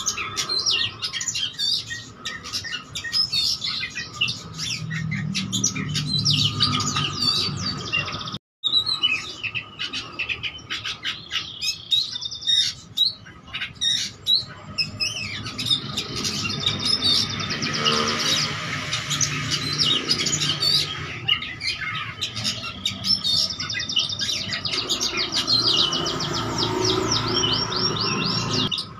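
Oriental magpie-robin (kacer) singing without pause: a fast, varied run of whistles, chirps and rapid trills, full of mimicked phrases from other birds' songs. The song breaks off for an instant about eight seconds in.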